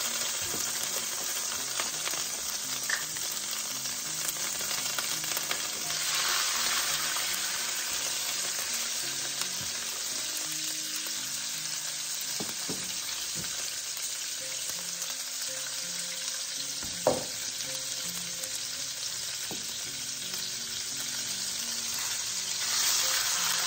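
Pork chops sizzling in hot bacon grease in an electric skillet, a steady frying hiss. It grows louder about six seconds in and again near the end as raw chops are laid into the fat. A single sharp tap comes about seventeen seconds in.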